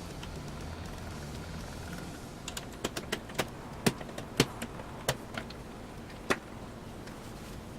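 Sharp clicks and taps of small hard parts being handled, about a dozen in a cluster through the middle, over a steady low hum.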